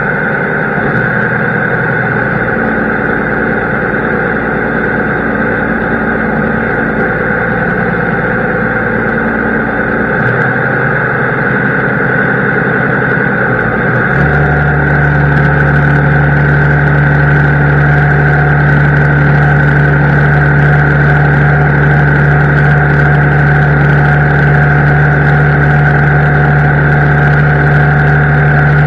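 Heavy farm machine's engine running steadily, with a constant high whine over it. About 14 seconds in, the low engine note shifts and gets louder.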